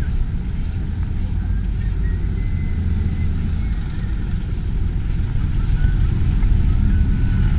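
Steady low rumble of street traffic, with no single vehicle standing out.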